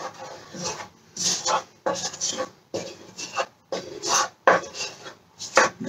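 A spoon scraping flour out of a bowl and stirring it into cake batter: a run of short, irregular scrapes, about two a second.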